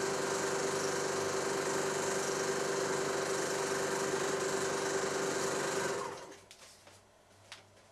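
16mm film projector running, a steady mechanical rattle with a constant hum. It fades away about six seconds in, leaving only a few faint clicks.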